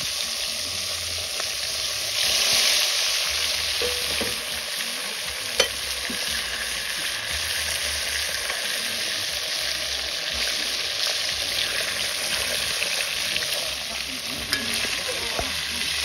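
Whole fish deep-frying in hot oil in a pot over a charcoal fire: a steady sizzle that swells for a moment about two seconds in. A single sharp click cuts through about halfway.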